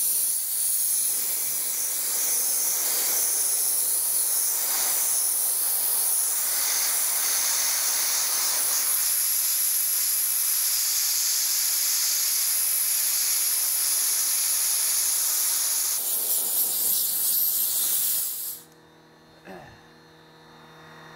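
Dry ice blasting gun firing compressed air and dry ice particles at a car tyre to clean it: a steady hiss that starts abruptly and cuts off about eighteen seconds in.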